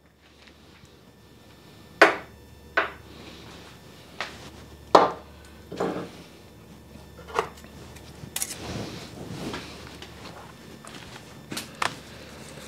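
Metal parts and hand tools being picked up and handled: a series of separate sharp clanks and clicks, about eight in all, over a faint steady low hum.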